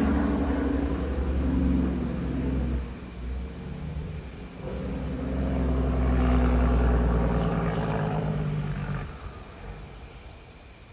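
Highway traffic going by: a tractor-trailer's engine drone and tyre noise fades over the first three seconds. Then a second vehicle builds up, passes loudest about six to eight seconds in, and dies away by about nine seconds.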